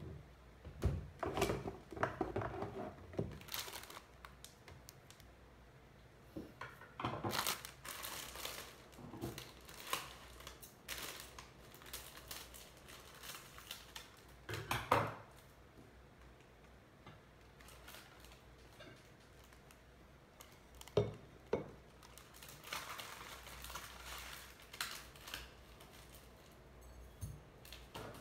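Plastic food packet crinkling and rustling in several bursts as it is handled and opened, with scattered knocks and clicks of objects set down on a table.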